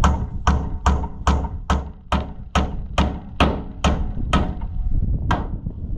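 Hand hammer striking a bent steel pin on a tractor's linkage, trying to knock it straight: a steady run of about eleven blows at a little over two a second, then one last blow about five seconds in, each a dull thud with a short metallic ring.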